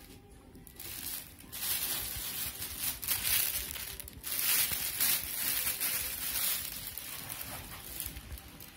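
Thin clear plastic bag crinkling and rustling as a monitor is pulled out of it. The rustling starts about a second in, is loudest in the middle, and eases off near the end.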